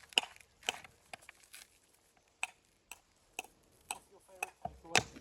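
A tool tapping on stone during walling work: about ten short, sharp knocks at an uneven pace of roughly two a second.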